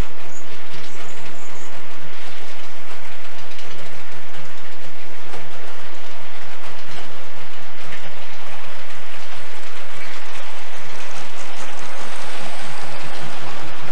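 HO scale model train rolling past: diesel locomotives pulling coal hopper cars, with a steady motor hum and the wheels clicking along the track.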